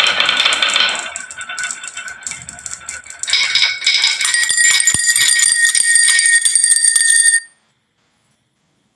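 Many marbles clattering down a wooden marble run, a dense rattle of rapid clicks. About three seconds in it grows louder and gains a bright ringing, then it cuts off abruptly about seven seconds in.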